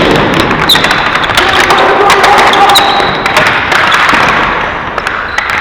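Ball hockey play: many sharp clacks and knocks of sticks and ball, with thuds, over a busy noisy background.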